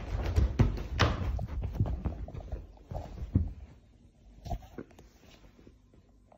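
Soft thumps, knocks and rustling of a caracal jumping and scrambling on a sofa. The sound is busiest in the first three seconds and thins to scattered light knocks after that.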